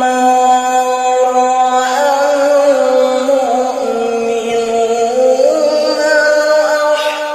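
Male qari reciting the Quran in the melodic tilawah style, holding long ornamented notes that bend up and down in pitch.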